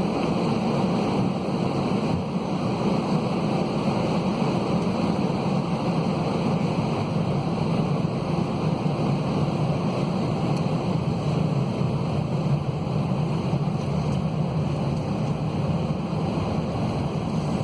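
Steady cabin noise of an Airbus A320-211 in flight: an even roar of its CFM56 jet engines and airflow, heard from inside the cabin.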